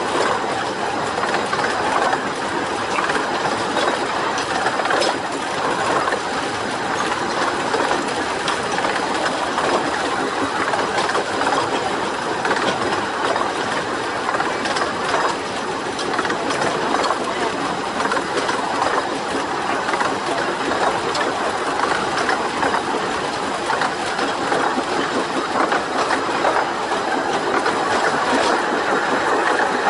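Carriages of a 15-inch gauge miniature railway running along the track: a steady rumble of wheels on rail with scattered clicks.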